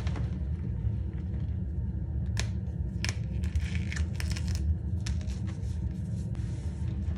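Cornstarch chunks crunching and squeaking as bare hands squeeze and crumble them in a metal bowl, with the crispest crunches coming thickest in the middle few seconds. A steady low rumble runs underneath.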